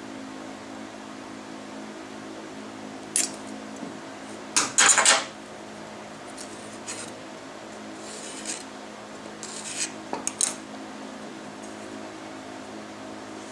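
Steel rule and square clinking and sliding against the cast-iron table saw top, with the loudest clatter about five seconds in, and a pencil scratching short layout lines on the wooden mallet barrel, over a steady low hum.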